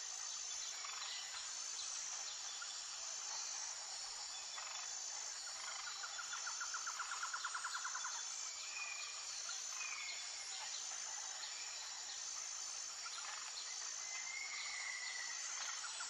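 Forest ambience with a steady high-pitched insect chorus pulsing at a regular beat. A rapid trill comes in about a third of the way through and lasts a couple of seconds. A few short whistled bird calls follow in the second half.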